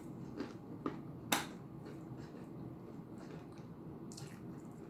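Quiet eating sounds: soft mouth and chewing noises with a few small sharp clicks, the loudest about a second and a half in.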